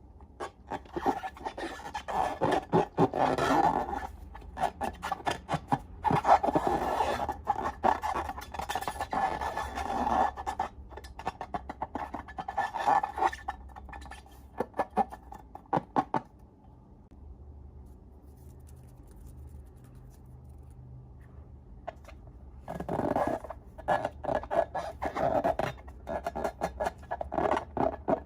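Sticky slime being stirred and squished, with dense crackling clicks in long bursts. It goes quieter for several seconds in the middle, then starts again.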